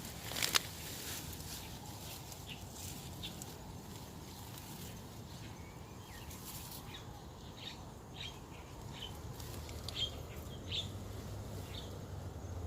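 Scattered short bird chirps over a faint low hum, with one sharp click about half a second in.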